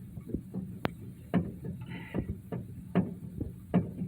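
Metal clicks and knocks, about two a second, from a spare tire winch under an SUV or pickup as its crank rod is turned counterclockwise to lower the tire.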